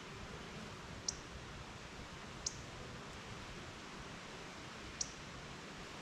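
Faint steady outdoor background hiss, broken by three short, sharp high ticks about one, two and a half, and five seconds in.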